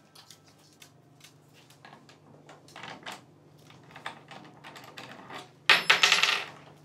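Cockatoo's beak picking at the metal parts of a puzzle-box lock: light, scattered clicks and taps, then a louder burst of metallic rattling near the end.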